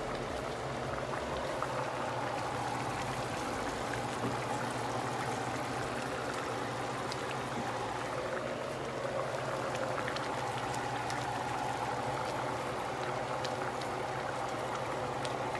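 A pot of thin khichuri simmering on a gas stove: a steady hiss with faint bubbling and popping, over a low steady hum.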